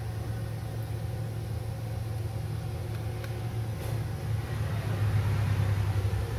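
Steady low hum, growing louder about four seconds in.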